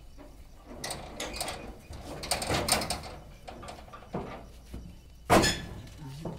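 Rustling, scuffling and footsteps as workers carry sacks of ginger on their backs, with one loud thump a little over five seconds in.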